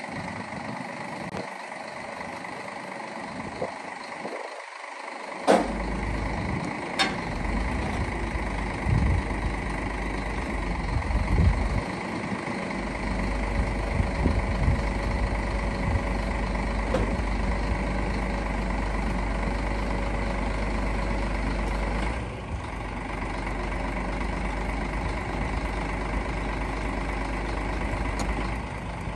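Diesel engine of a Scania P94 truck running to drive its Palfinger PK29002 loader crane while the boom is worked, with a steady low rumble that picks up about halfway through. Two sharp knocks come a few seconds in.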